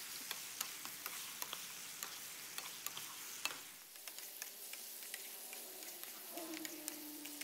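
Pork, pineapple and vegetables in sweet and sour sauce sizzling quietly in a non-stick pan while a wooden spatula stirs them, with frequent light clicks and scrapes of the spatula against the pan.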